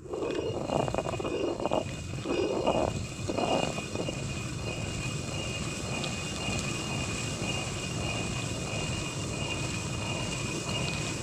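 Hand-turned stone quern grinding grain into flour: the upper millstone scraping and rumbling round on the lower one as it is turned by its wooden handle. It surges louder about once a second in the first few seconds, then settles into a steadier grind. A steady high-pitched tone sits above it throughout.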